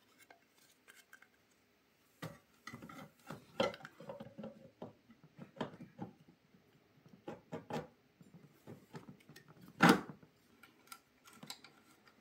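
Handling noise as a rubber HTD 5M timing belt is worked onto a 3D-printed wheel pulley and motor pulley: scattered small clicks, knocks and rubbing, with one louder knock about ten seconds in.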